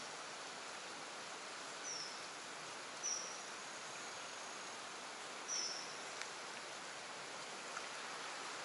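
Steady hiss of light rain falling on water and foliage, with three short, high, slightly falling chirps from a bird: about two seconds in, three seconds in, and five and a half seconds in.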